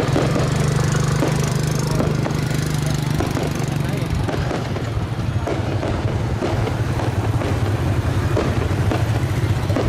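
Busy street crowd: many voices talking at once over the steady hum of motorbike engines.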